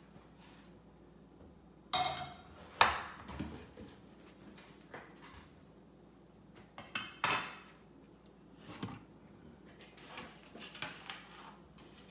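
Scattered knocks and clinks of a cleaver against a wooden cutting board as a bottle gourd is peeled and cut, some with a short metallic ring. The sharpest knock comes about three seconds in.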